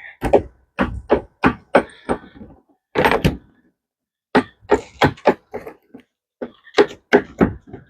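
Key being pushed and worked into the stiff lock of an ATV rear-rack cargo box: a string of short, sharp clicks and knocks in bursts, with short pauses between. The lock is tight, so the key has to be forced in hard.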